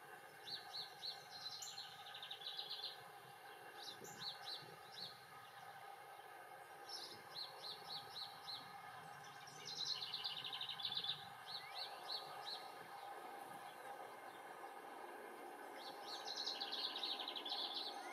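A wren singing in the background: about five songs a few seconds apart, each a quick run of high rapidly repeated notes, over a steady faint background hum.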